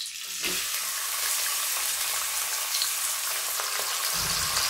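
Chopped onions sizzling in hot oil in an aluminium wok, the steady sizzle setting in about half a second in as they hit the oil. A low bump sounds near the end.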